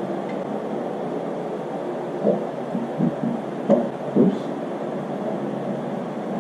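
Steady background hum with a cluster of light knocks and thuds between about two and four and a half seconds in: motorcycle parts being handled and fitted.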